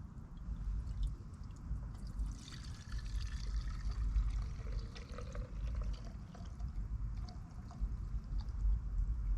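Gasoline being poured for a few seconds, starting about two seconds in and trickling off a few seconds later, as fuel is handled from the chainsaw's tank.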